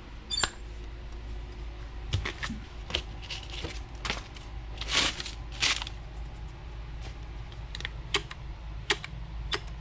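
Irregular clicks and light knocks from handling and squeezing a dispensing gun loaded with a two-part adhesive cartridge, with two short hissy scrapes about five seconds in.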